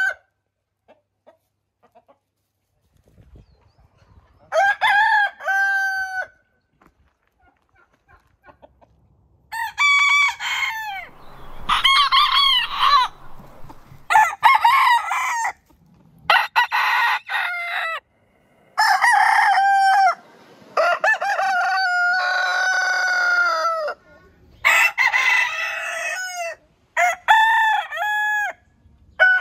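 Roosters crowing, several different birds in turn. A single crow comes about five seconds in. From about ten seconds a quick run of crows follows, one straight after another, each starting abruptly.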